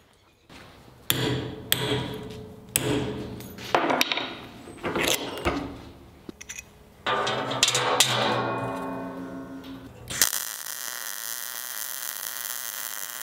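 Hammer blows on a steel latch strip clamped in a bench vise, bending it, each with a short metallic ring. About ten seconds in this gives way abruptly to a MIG welder's steady crackling hiss.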